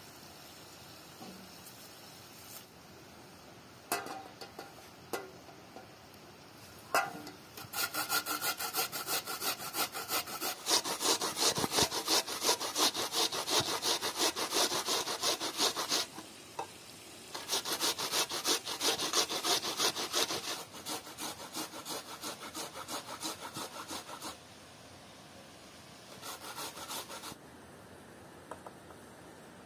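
Onion being grated on a stainless steel box grater: quick, rhythmic rasping strokes in two long runs with a short pause between them, then a few lighter strokes near the end. A few light clicks come before the grating starts.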